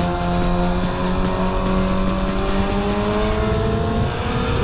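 Honda CBR600F4i inline-four sport-bike engine pulling hard under acceleration, its revs climbing steadily, with wind rushing over the bike.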